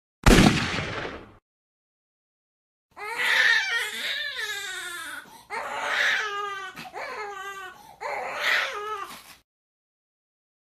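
A short, loud burst of noise, then after a dead-silent gap a crying voice in four or five wavering, falling wails, each breaking off abruptly.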